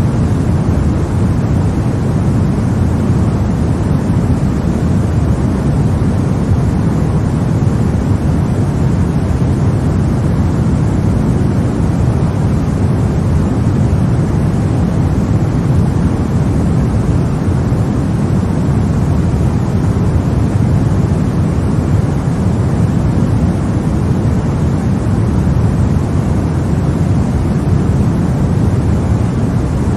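Steady sleep-aid white noise for babies: an unbroken, even hiss weighted toward the deep end, with no changes in level.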